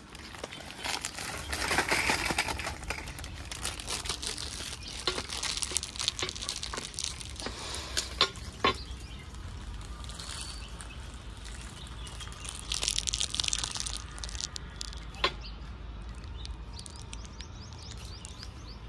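Plastic biscuit wrapper crinkling and rustling as the biscuits are handled out, in patches about two seconds in and again near thirteen seconds, with a few sharp clicks of handling in between.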